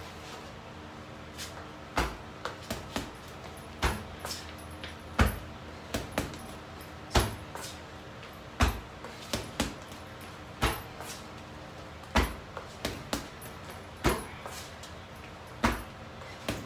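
Boxing-gloved punches and kicks landing on an Everlast heavy bag: a string of sharp thuds at an uneven pace, the harder blows about every one to two seconds with lighter ones between them.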